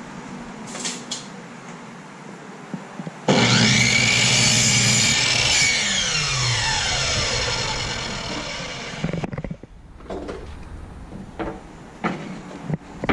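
Craftsman miter saw starting up about three seconds in, its pitch rising as it spins up, and cutting a thin wooden strip. After the trigger is released, the blade winds down with a falling whine over several seconds. A few light knocks follow near the end.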